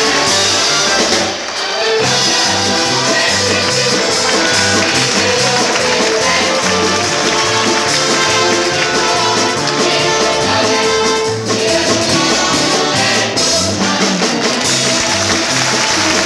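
Viareggio carnival song (canzonetta) performed live with band accompaniment: an upbeat tune over a bass line stepping from note to note, with brief dips in loudness about a second in and again near the middle.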